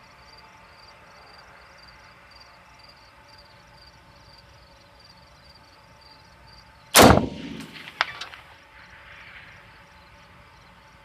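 A single AR-15 rifle shot about seven seconds in, firing a 5.56 round, with an echo trailing off, and a short sharp tick about a second later. Insects chirp steadily in a regular pulse throughout.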